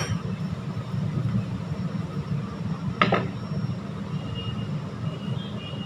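Steady low hum under the sounds of paratha dough being rolled out and handled on a board, with a soft knock at the start and a sharp knock about three seconds in.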